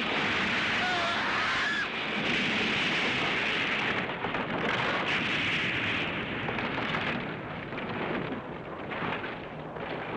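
Dense, steady noise of explosion and destruction sound effects from a 1970s TV special-effects soundtrack, with a faint wavering high tone about a second in. It eases off somewhat in the last few seconds.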